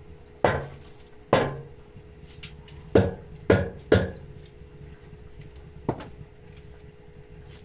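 Wooden beehive frame knocked hard against the steel drum of a steam wax melter, five sharp wooden knocks with a short ring, two of them close together, then a lighter knock near the end, to shake the melted beeswax off the frame. A faint steady hum runs underneath.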